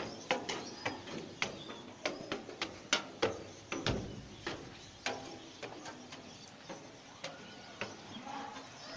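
Irregular sharp clicks and knocks, several a second for the first few seconds, then sparser.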